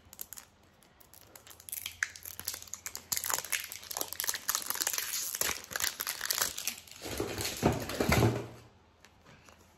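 Shiny plastic wrapper being peeled and pulled off a 5 Surprise Mini Brands capsule ball: a run of crinkling that builds and is loudest just before it stops, about a second before the end.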